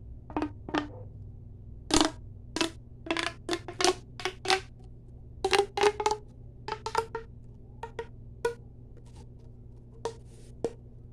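ASMR tapping on a hard object: irregular sharp taps, several in quick clusters, some ringing briefly with a hollow pitched note.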